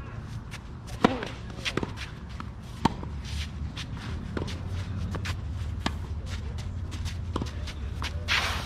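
Tennis rally: sharp pops of racket strings striking the ball, the two loudest about a second and three seconds in, then fainter hits and bounces every second and a half or so, over footsteps and shoe scuffs on the court. A low steady rumble runs underneath, and a brief rush of noise comes near the end.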